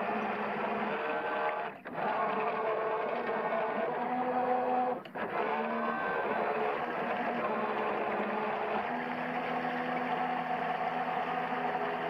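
Electric motors of a Waverunner Mark 3 bait boat running as the boat drives across the water, heard from a camera on the boat. The whine holds steady tones that step up and down in pitch, and the sound cuts out briefly twice, about two and five seconds in.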